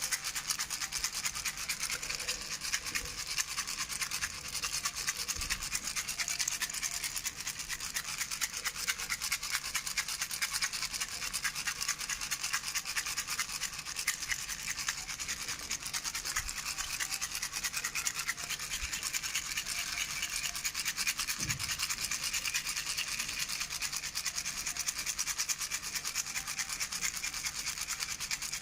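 Toy baby rattle shaken continuously: a fast, steady stream of small rattling clicks.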